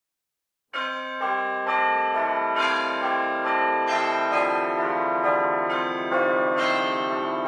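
Church bells ringing a peal, a new bell struck about twice a second with the rings overlapping. The peal starts about a second in, after silence.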